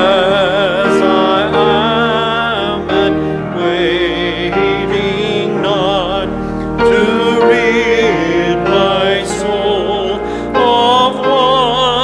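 Congregation singing a slow hymn with instrumental accompaniment, voices wavering with vibrato over held chords.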